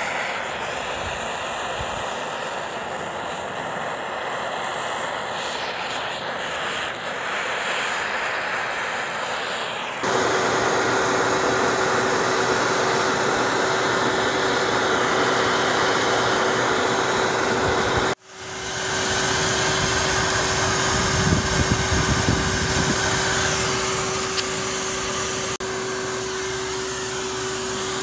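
Makeshift charcoal forge running under forced air: a steady rush of air from an electric blower pushed through a pipe into the burning charcoal. About ten seconds in it gets louder and a steady motor whine joins, and just after eighteen seconds it cuts out for an instant and comes back.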